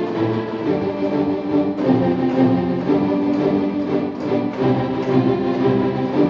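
Sampled orchestral strings from a computer sound library, played as an action-style string passage with sustained chords and moving lines.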